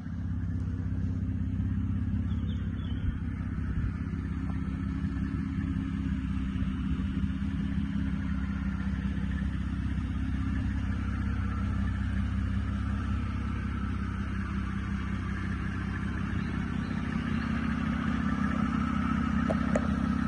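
Nissan Murano's 3.5-litre V6 petrol engine idling steadily, a low even hum.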